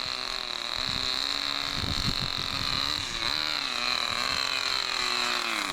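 Radio-controlled car's motor running as the car drives past, its pitch wavering and dipping near the end over a steady high whine, with a brief low rumble about two seconds in.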